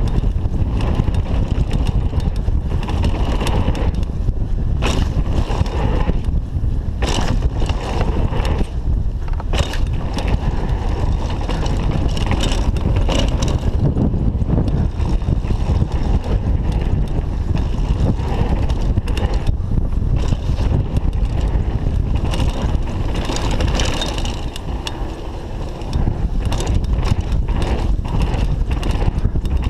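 Downhill mountain bike descending a dirt trail at speed: wind buffeting the chest-mounted camera's microphone over the rolling of the tyres, with frequent sharp rattles and knocks from the bike over bumps.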